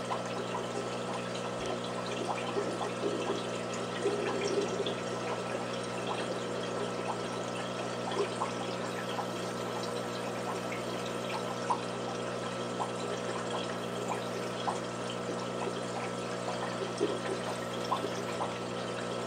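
Aquarium water trickling with scattered small bubbling pops, over a steady hum from a running pump.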